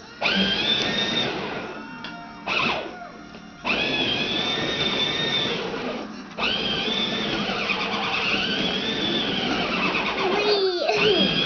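Battery-powered ride-on toy train running on its plastic track, its electric drive motor whirring under short electronic tunes and sound-effect clips from the toy's speaker, each clip a few seconds long with brief gaps between them.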